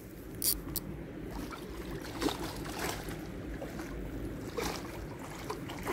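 Large hooked carp swirling and splashing faintly at the surface close to the bank, a few short sloshes scattered over a low steady rumble.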